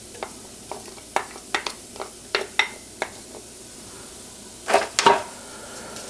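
A wooden spoon taps and scrapes diced red onion out of a bowl into a stainless steel pot, a dozen or so short clicks with a couple of louder knocks near the end. Under it runs a faint steady sizzle of butter melting in the warm pan.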